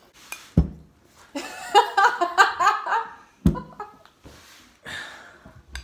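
A young woman laughing for about two seconds, with a dull thump just before the laugh and another just after it.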